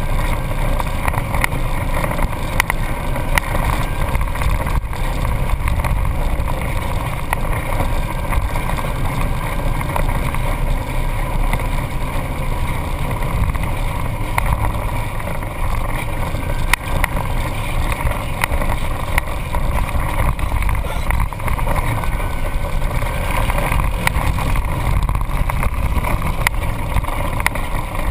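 Off-road vehicle's engine running steadily while driving a bumpy dirt trail, picked up by a hood-mounted GoPro as a loud, even rumble with frequent short knocks and rattles from the rough ground.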